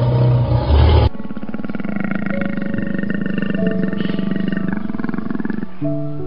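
A big cat's deep, loud growl for about a second, cutting off abruptly, then a steady rasping growl with a fast, even pulse.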